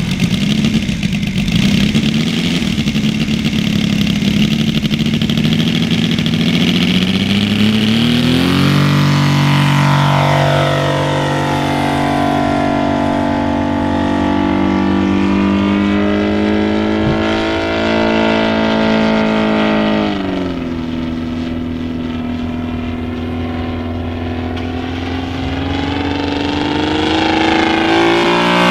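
Saito FG-60R3 60cc three-cylinder gas radial engine of a large RC P-47 model running: a rough, lower note at first, then about eight seconds in the pitch jumps to a steady, higher drone as the model flies. The pitch sweeps down and up as it goes, drops lower about twenty seconds in and climbs again near the end.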